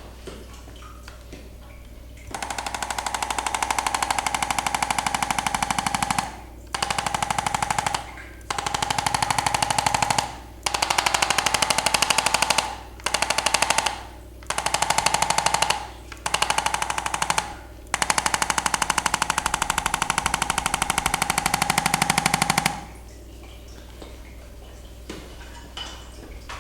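Electric percussion massager running in fast pulses, with a steady motor hum under the rapid hammering. It runs in eight stretches of one to five seconds, stopping briefly between them.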